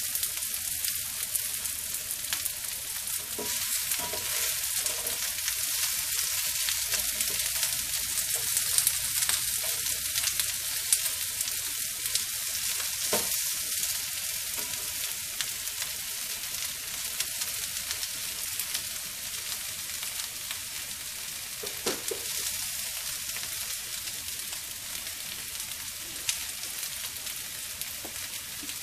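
Sliced vegetables sizzling in canola oil in a nonstick frying pan over high flame, a steady hiss, with occasional clicks and scrapes as a spatula stirs them.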